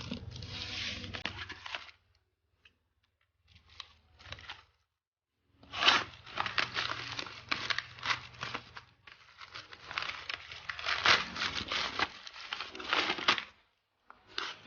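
Packaging being torn open and crinkled by hand, in several separate stretches with abrupt silent gaps between them.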